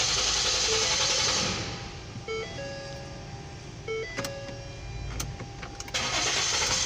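A 2014 Ford Flex's 3.5-litre V6 is cranked by the starter without catching; the cranking stops about a second and a half in and starts again near the end. A warning chime beeps about every second and a half, with a few clicks in the quieter middle. The car cranks but won't start, a fault the mechanic suspects comes from a failing fuel pump control module.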